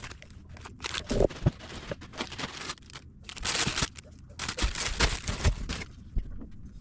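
Packaging being handled during an unboxing: repeated bursts of rustling and crinkling, mixed with light knocks.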